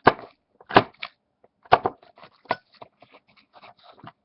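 Classic Zippo lighter being handled and struck: a series of sharp metallic clicks and flint-wheel scrapes, several in quick succession.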